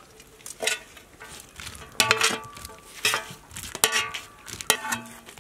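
Metal ladle scraping and knocking against a large iron kadai as cooked prawns are scooped out onto a steel platter. There are about five clanks, roughly one a second, and most ring briefly.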